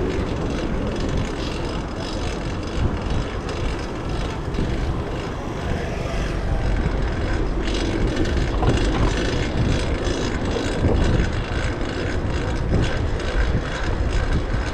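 Wind rushing over a bike-mounted camera's microphone, with road and drivetrain noise, while riding a fixed-gear bicycle.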